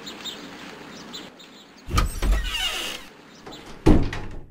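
Car sound effect: a vehicle starting up and pulling away about two seconds in, with a falling whine. A second loud, sudden sound comes near the end.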